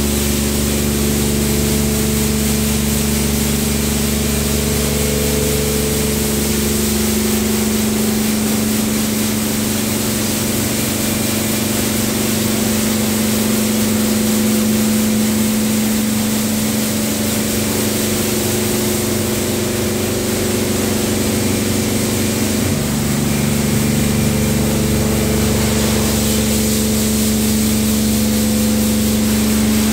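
Tammermatic T700 Lux gantry car wash running its touchless program: water jets hissing over the car with a steady pump hum underneath. A deep low part of the hum drops out about seven seconds in and comes back a little after twenty seconds.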